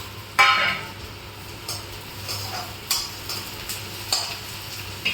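A spoon stirring thickened homemade jaggery-and-spice cough syrup in a pan, scraping and clinking against the pan: one sharp ringing clink about half a second in, then lighter taps about once a second.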